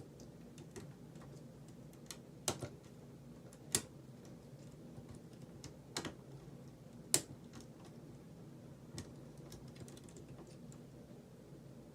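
Lock pick clicking against the pins inside an Abus 72/40 padlock: a handful of sharp, irregular clicks over a faint steady hum, as pins are worked with the lock sitting in a false set.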